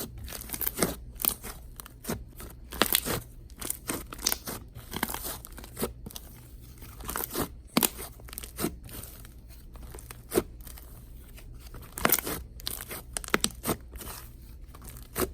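Slime being poked, folded and squished by hand, giving irregular sticky clicks and pops, several a second.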